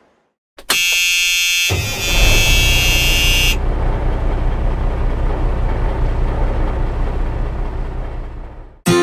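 Snow groomer's engine running with a steady low rumble that fades away near the end, while a loud, steady, high-pitched buzzer tone sounds over it for about the first three seconds.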